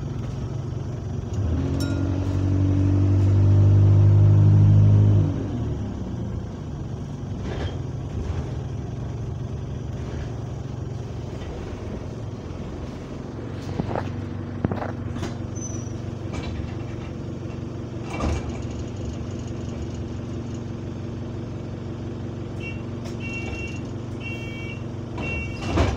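Bus diesel engine heard from inside the saloon, revving up hard as the bus accelerates about two seconds in, then dropping back to a steady run with a few knocks and rattles. Near the end a string of repeated high door warning beeps sounds as the doors work at a stop.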